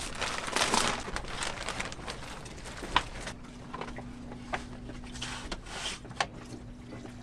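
Bubble wrap and a clear plastic bag rustling and crinkling as a blue plastic mounting bracket is unwrapped. After about three seconds the rustling thins to scattered light clicks and knocks as the bracket is handled.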